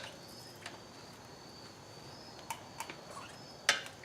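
Steel tire irons tapping and clicking against a motorcycle wheel rim as the tire bead is levered off, with a sharper metallic knock near the end.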